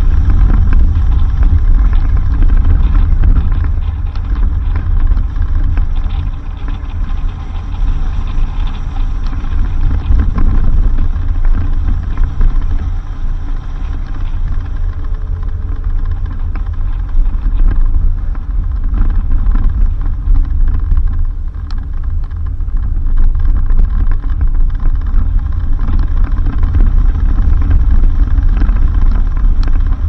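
Suzuki Jimny driving on a dirt road: a steady engine and road rumble, heavy in the low end, rising and falling in loudness.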